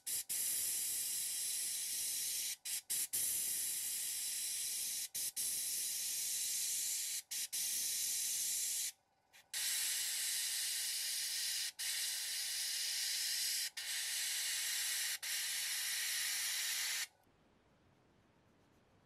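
Airbrush spraying paint onto a plastic model car body: a steady high hiss of air, broken by several short gaps and a longer pause about nine seconds in, stopping about seventeen seconds in.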